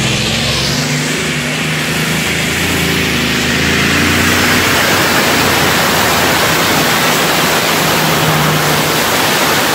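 Pulling tractor's engine running at full throttle as it drags the weight-transfer sled down the track, getting louder over the first few seconds as it comes closer.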